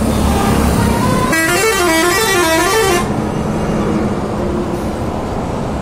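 Heavy truck traffic rumbling at a toll plaza. About a second and a half in, a musical vehicle horn plays a warbling, up-and-down tune for nearly two seconds.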